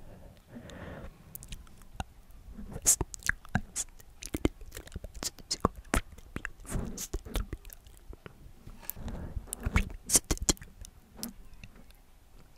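Inaudible ASMR whispering close to the microphone: soft breathy whispers with no clear words, broken by many sharp, wet mouth clicks and lip smacks.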